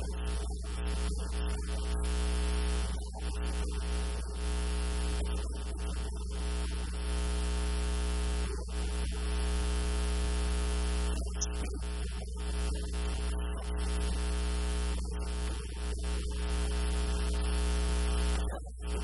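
Loud, steady electrical mains hum with a buzz of many overtones, filling the recording.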